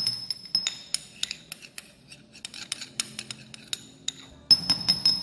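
Metal spoon scraping and clinking against a small white dish and the rim of a glass jar as thick paste is scraped off into oil: many quick, irregular clicks and scrapes.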